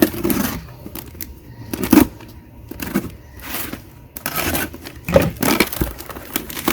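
Rustling and crinkling of packaging with light knocks as items are handled and unpacked from a cardboard box.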